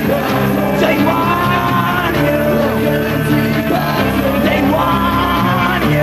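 A rock song playing: a full band with a melodic line that bends in pitch over steady low chords.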